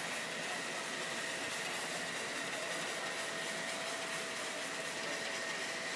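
Water spraying from a robotic aircraft-washing arm and falling onto the hangar floor: a steady hiss, with a faint high whine held under it.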